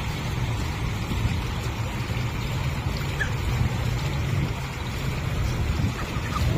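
Low fountain jets splashing steadily into a shallow pool, over a low rumble.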